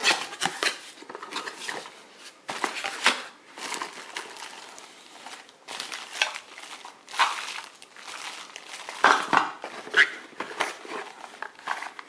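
Unboxing handling noise: cardboard box flaps pulled open and plastic-bagged metal lock parts rustling, crinkling and lightly clinking as they are lifted out and handled.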